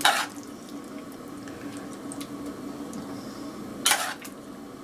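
A metal spoon scooping wet salad out of an enamel bowl and dropping it onto a steel plate: two short scraping, squelching bursts, one at the start and one about four seconds in, over a faint steady hum.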